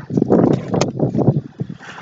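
Handling noise from a phone camera being moved and set down: irregular rubbing and bumps against its microphone.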